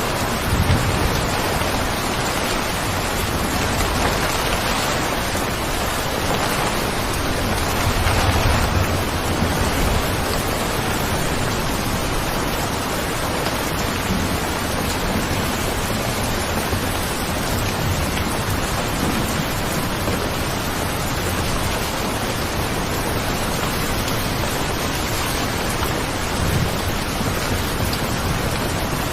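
Steady rain falling hard, a dense even hiss, with a low rumble swelling up about a second in and again around eight seconds in.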